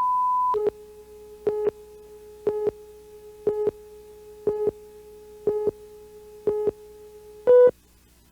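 Electronic test tones: a steady high tone that cuts off about half a second in. A lower steady tone follows, with a louder beep once a second, six times, then a higher, louder, longer final beep, like a broadcast countdown.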